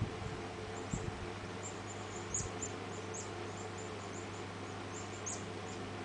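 A lock pick working the pins of a Yale five-pin padlock under a tension wrench: a string of faint, quick, high metallic ticks and scrapes, with a couple of soft knocks in the first few seconds, over a steady low hum.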